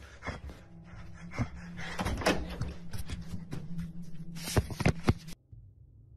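A series of irregular knocks, thumps and clicks of uneven loudness over a steady low hum, cutting off abruptly about five seconds in.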